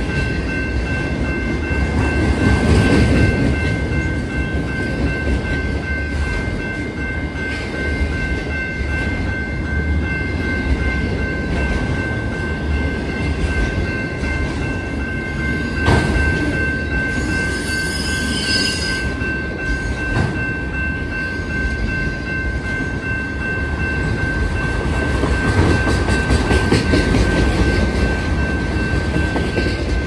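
Freight train of autorack cars rolling past at a grade crossing: a steady rumble and clatter of wheels on the rails, with a steady high ringing of several tones over it. A single sharp bang about 16 seconds in, and a brief high whine just after it.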